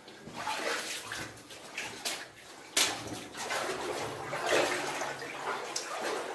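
Footsteps splashing and sloshing through water along a flooded mine tunnel, in uneven swells, with a couple of sharp knocks about two and three seconds in.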